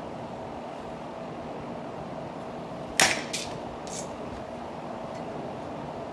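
A bat strikes a softball off a batting tee about three seconds in with one sharp crack, followed by two fainter knocks within the next second. A steady hum runs underneath.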